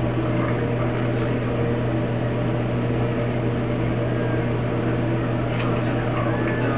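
Steady low electrical hum with an even drone.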